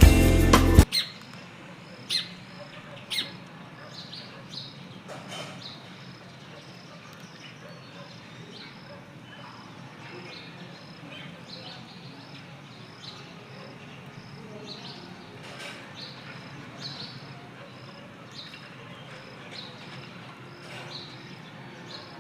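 Scattered short, high chirps and squeaks from a small animal over a low, steady background hum. Background music cuts off about a second in.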